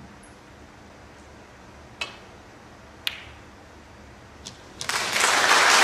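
Two sharp clicks of snooker balls being struck, about a second apart, then an audience breaking into applause near the end.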